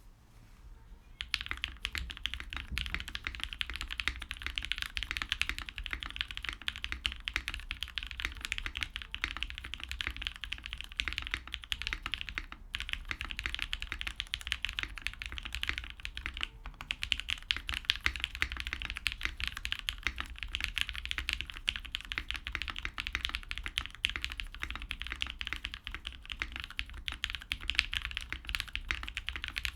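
Continuous fast typing on a custom 60% mechanical keyboard with lubed Tealios V2 linear switches (Gateron Yellow stems), a POM plate and GMK Space Cadet keycaps. It is a dense run of keystrokes that starts about a second in, with a couple of brief pauses.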